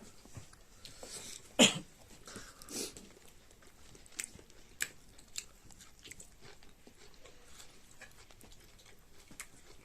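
Close-up eating sounds: chewing and biting into chicken, with scattered small clicks and smacks. One short, louder sound about one and a half seconds in.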